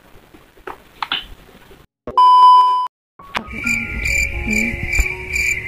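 Smart Hafiz learning tablet's loudspeaker: a loud electronic beep lasting under a second, then the menu's music, a high trilling tone that pulses about twice a second over a few low notes.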